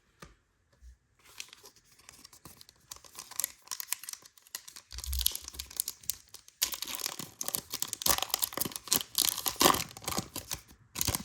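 Trading card pack wrapper being torn open and crinkled by hand, scattered crackles at first, then a louder, busier stretch of tearing and crinkling for the last few seconds.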